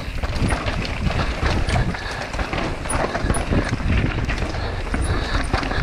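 Mountain bike riding down a rough trail: constant tyre rumble over dirt and rocks with rapid clattering and rattling from the bike.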